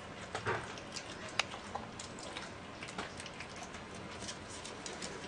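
An animal eating beef: irregular small clicks and ticks of chewing, with one sharper click about a second and a half in.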